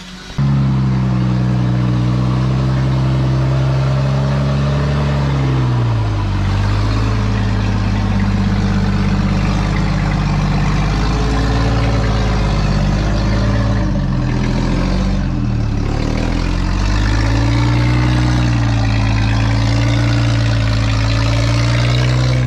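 An off-road 4x4's engine running loud, cutting in sharply about half a second in, then its revs falling and rising again several times as it works along the trail.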